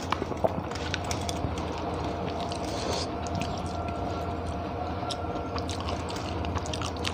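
Close-up eating sounds: wet chewing and lip smacks as rice and egg curry are eaten by hand, with small clicks and squishes from fingers mixing food on a steel plate. A steady low hum runs underneath.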